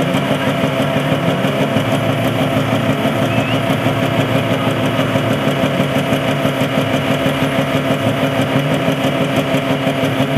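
An engine idling steadily with an even, pulsing beat.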